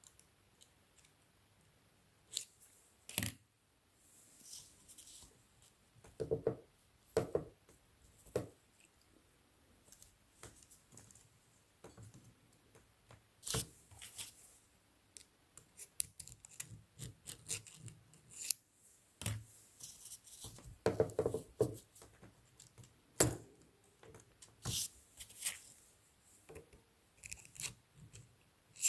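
Irregular clicks, taps and short scrapes of small hand tools and metal parts being handled on an Olympia SM7 typewriter's stripped-down mechanism, with a few heavier knocks.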